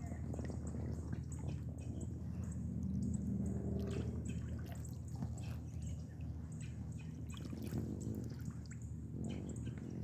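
Kayak paddling: water dripping and trickling off the paddle blades and splashing lightly as they dip in, in many small irregular drips.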